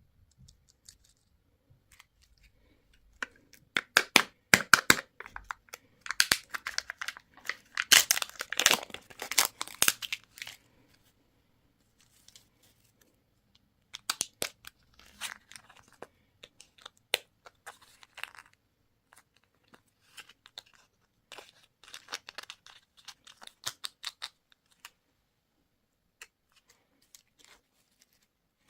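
Crinkly candy wrapper being torn and crumpled open by hand, in three spells of dense crackling with pauses between.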